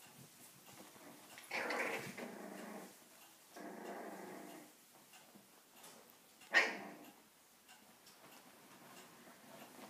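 Five-week-old puppies vocalising as they play-fight: two drawn-out play growls in the first half, then a short, sharp yip about six and a half seconds in, the loudest sound.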